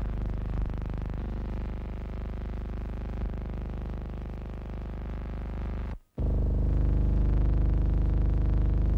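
Newsreel background music: sustained, steady chords, with a brief dropout about six seconds in, after which it returns louder.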